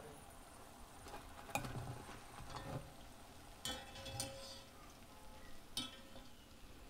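Metal kitchen utensil clinking against cookware about four times, some clinks ringing briefly, over the faint sizzle of deep-frying oil.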